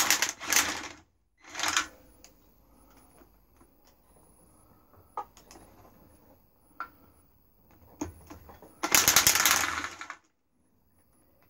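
Sealy impact wrench hammering in short bursts on a bolt: two quick bursts at the start, another just under two seconds in, and a longer burst of about a second and a half near the end, with a few sharp metal clicks in between.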